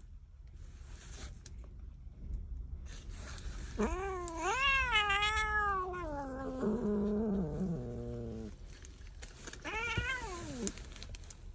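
Calico cat giving a long, wavering meow that slides down into a low, drawn-out grumble, then a shorter falling meow near the end. These are complaints at being handled while she sits in her box.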